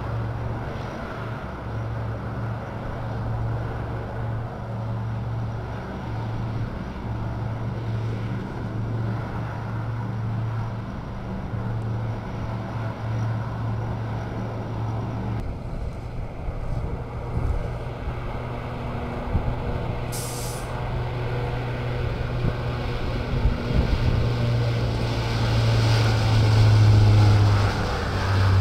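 Lockheed C-130 Hercules four-engine turboprops at takeoff power during the takeoff roll: a steady, loud propeller drone with a low hum beneath a broad roar. About halfway through it changes abruptly to a second C-130, whose drone grows louder near the end as it passes and lifts off.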